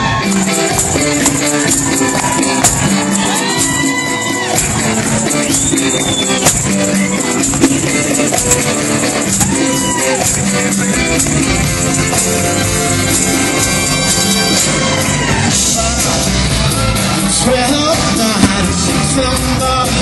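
Live rock band playing with a section of violins, with a singer's voice over the music.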